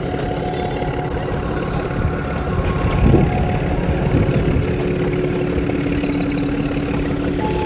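Nilgiri Mountain Railway toy train running: a steady mechanical rumble with a constant hum, and a brief louder clatter about three seconds in.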